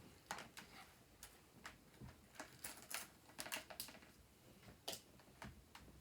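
Faint, irregular light clicks and taps of small hard objects being handled, about a dozen, bunched together around the middle with a sharper one near the end.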